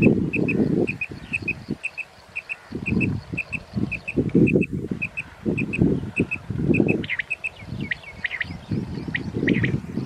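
Quail calling: a steady run of short, high paired chirps, about two pairs a second. About seven seconds in it gives way to sharper, more varied chirps. Loud low rustling and buffeting noise comes and goes under the calls.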